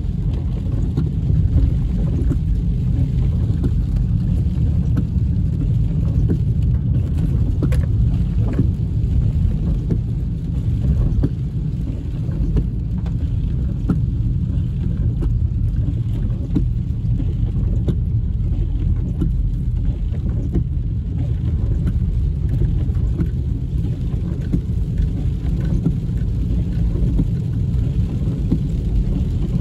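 Steady low road and engine rumble heard inside a moving car's cabin with the windows up, with faint scattered ticks of raindrops hitting the windshield.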